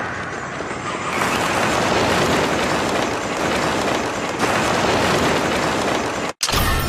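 Bat-swarm sound effect from a Kamen Rider Evil transformation: a dense, steady rushing noise of many flapping bats that cuts off abruptly about six seconds in.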